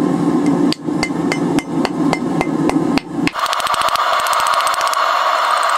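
Repeated blows of the back of a wire brush on a hot wrought iron bar, bending it over the horn of an anvil, about three strikes a second. About three seconds in, the strikes turn into a much quicker patter.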